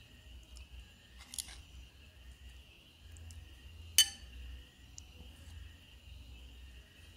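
A metal spoon clinks sharply against a ceramic plate about four seconds in, with a fainter clink about a second and a half in, over a steady high-pitched insect chorus.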